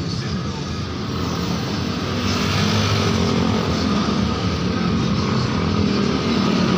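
A motor vehicle engine running steadily.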